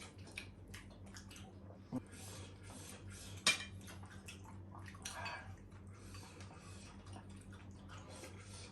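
Quiet eating at a table: cutlery and plates clink now and then, with two sharper clicks about two and three and a half seconds in, over a steady low hum.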